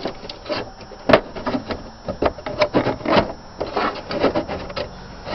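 Close handling noise: hands rubbing, scraping and knocking against things right by the microphone, in irregular short strokes.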